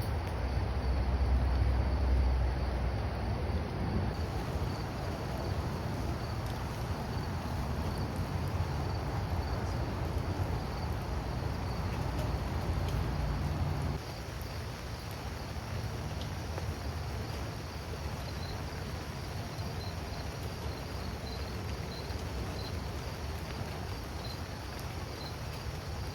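Crickets chirping in a steady, rapid pulsing over a low rumbling background, the rumble strongest in the first few seconds and dropping about halfway through.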